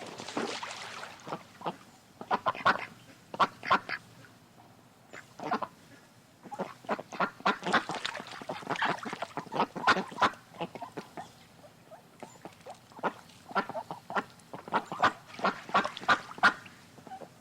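A group of ducks quacking, many short overlapping calls in bursts with brief lulls between them. A short rush of noise comes at the very start.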